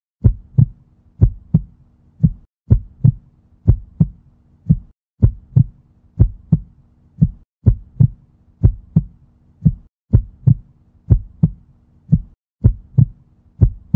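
Heartbeat sound effect: deep, loud lub-dub double thumps, about one pair a second, over a faint low hum.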